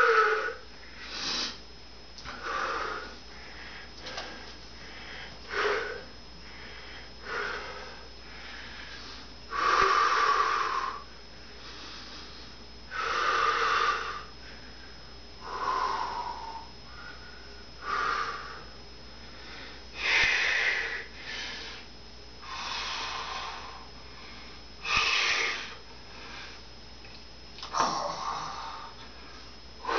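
A man breathing heavily to catch his breath after push-ups: deep, wheezy breaths every two to three seconds, some louder than others.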